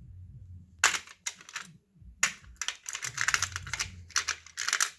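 Rummaging through a stock of loose capacitors: a run of light, irregular clicks and rattles of small parts knocking together, starting about a second in, over low handling rumble.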